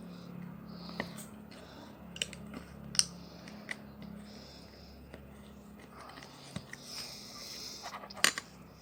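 Small plastic Lego pieces clicking and tapping as they are handled and pressed together, a sharp click every second or so, over a low steady hum.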